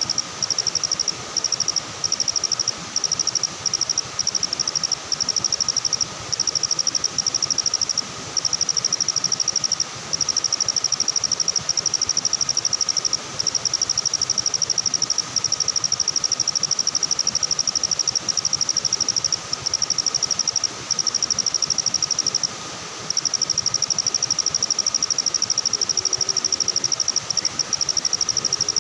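Insect trilling close by: a high, fast-pulsing chirr in long runs broken by short gaps, over a fainter steady whine of other night insects.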